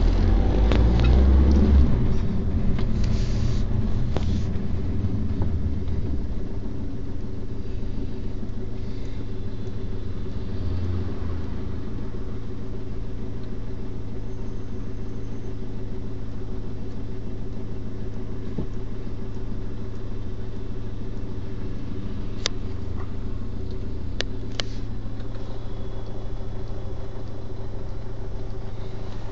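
Car engine hum and cabin rumble heard from inside the car. A heavier low rumble in the first few seconds settles into a steady hum, with a couple of sharp clicks late on.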